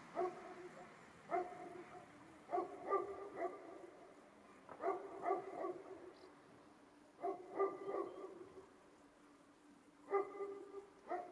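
A dog barking, fairly quiet, in irregular short bouts of one to three barks a second or two apart.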